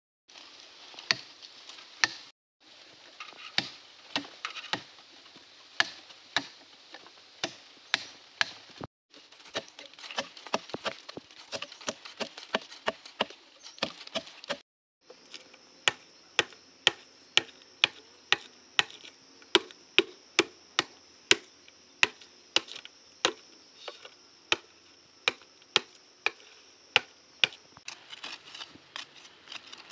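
Machete chopping into a green bamboo stem: a run of sharp chops, coming at a steady pace of about two a second in the second half.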